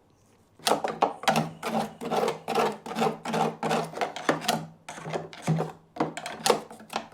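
Rhythmic hand scraping on the mower's metal, about three quick strokes a second, starting about half a second in.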